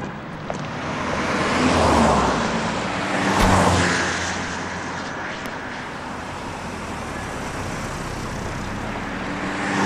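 Porsche Cayenne SUV pulling away and driving past, its engine and tyre noise swelling twice in the first few seconds, then settling to a steady lower hum before rising again near the end.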